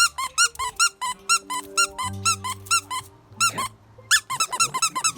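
Background music made of quick squeaky chirping notes, about four to five a second, over a held bass line.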